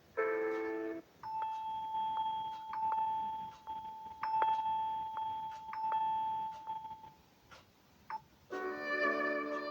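Samsung Galaxy M32 ringtones playing in turn: a short chord phrase ends about a second in, then one steady tone sounds for about six seconds under light regular ticks, and a new melodic ringtone starts near the end.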